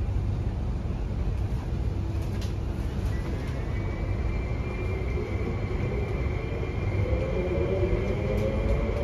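MTR West Rail Line electric train starting off and accelerating, heard inside the passenger car. Steady low running rumble, with the traction motors' whine coming in about three seconds in and rising in pitch as the train gathers speed.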